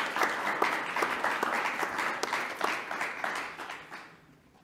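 Congregation applauding, a dense patter of many hands clapping that dies away about four seconds in.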